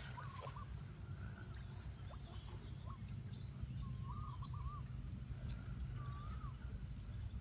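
A steady high-pitched insect drone, like crickets or cicadas, over a low rumble, with a bird giving short warbling phrases three times: at the start, about four seconds in and about six seconds in.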